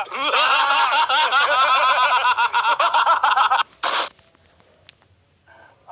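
A high-pitched snickering laugh in quick repeated pulses, used as a meme sound effect, cutting off about three and a half seconds in and followed by a short burst of noise.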